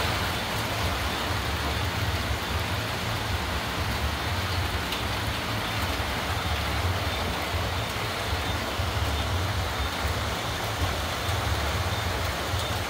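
Heavy rain pouring steadily, an even hiss of falling water with a constant low rumble underneath.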